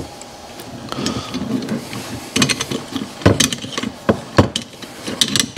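Nylon locking nut being run down onto a grade 8 bolt through a steel plate with a hand wrench: steel clinks and clicks, irregular and sharp, as the wrench is turned and repositioned, with rustling of hands and sleeves.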